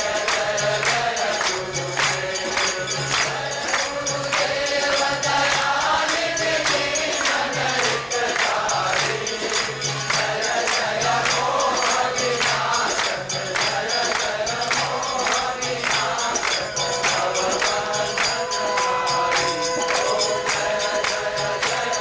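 A large group singing a devotional chant together, with rhythmic hand-clapping and percussion keeping a steady beat.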